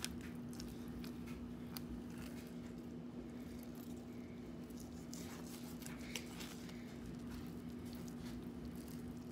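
Knife slicing a fillet off a perch on a cutting surface: faint scattered clicks and scrapes of the blade through flesh and against bone, with a steady low hum underneath.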